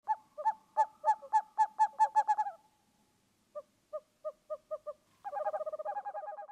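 Owl calls in short pitched notes: a quick run of about a dozen, then a softer run of about six spaced notes, then a fast trill near the end.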